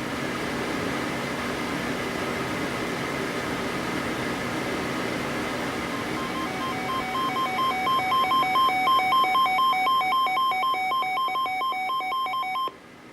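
Weather radio receiver hissing with static, then its electronic alert alarm sounding from about six and a half seconds in. The alarm is a rapid, buzzy beeping that alternates between two pitches, about three beeps a second, and cuts off suddenly near the end. It signals an incoming warning broadcast.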